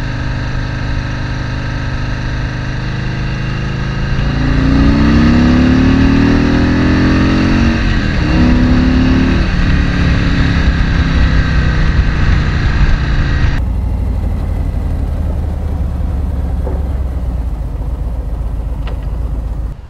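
Harley-Davidson Road King Special's Milwaukee-Eight 107 V-twin under way, its pitch rising as it accelerates about four seconds in. It dips briefly as it shifts up and rises again, then holds a steady cruise. For the last few seconds it is heard from farther off, quieter and duller.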